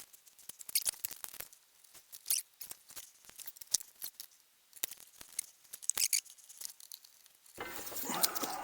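Faint, scattered clicks, taps and scrapes of hand work on a metal tool cart. A louder steady rushing noise comes in near the end.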